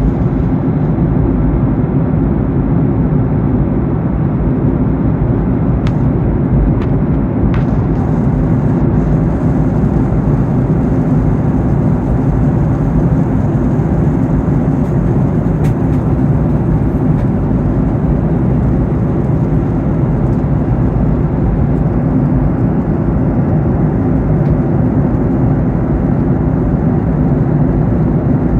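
Steady cabin noise inside a Boeing 737-800 in flight: an even rush of airflow and engine drone, with a few faint clicks.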